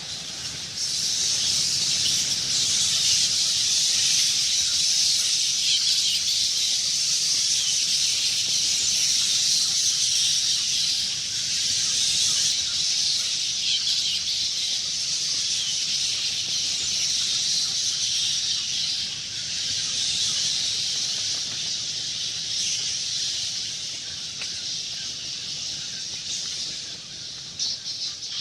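A swarm of bats chittering and squeaking: a dense, unbroken high-pitched chatter. It grows louder about a second in and eases slightly near the end.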